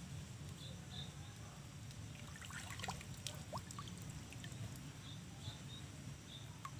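Stream water trickling and sloshing around a person's legs as he wades knee-deep, with a cluster of small splashes and clicks about three seconds in. Faint short high chirps come and go in the background.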